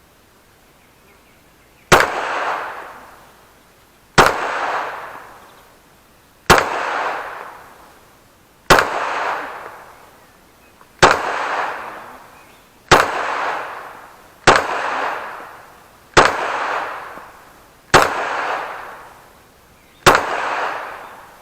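Glock 17 9mm pistol fired ten single shots, about one every two seconds, each sharp crack followed by a long echoing decay.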